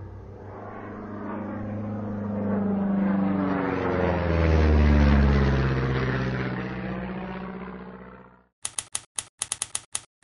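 Airplane flyby sound effect: a whoosh of engine noise that swells, peaks about halfway through with its pitch falling as it passes, and dies away. Then about ten quick typewriter key clacks.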